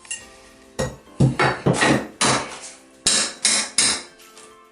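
A hammer striking about eight times in two quick runs, each blow sharp with a short ring, knocking loose a last piece of a bathroom being demolished.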